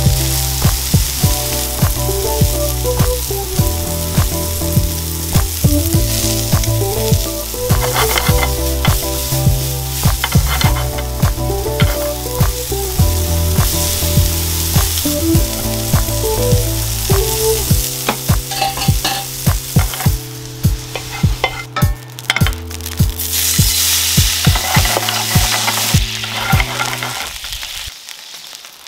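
Sliced button mushrooms sizzling as they fry over high heat in a non-stick pan, with metal tongs clicking against the pan as they are turned. Late on, water goes into the hot pan with a loud hiss, and the level then drops.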